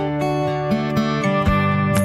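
Background music led by acoustic guitar playing a melody.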